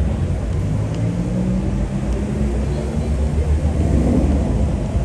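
Low, steady rumble of motor traffic on a city street, a vehicle engine humming through it.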